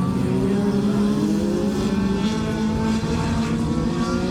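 Several dirt-track race car engines running together around the oval, their pitches rising and falling as the cars circulate.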